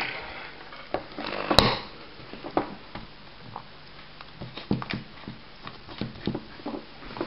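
Scattered light clicks, taps and knocks from a power drill and a speedometer cable being handled on a table, with a short rush of noise and one sharp click about a second and a half in. The drill is not running.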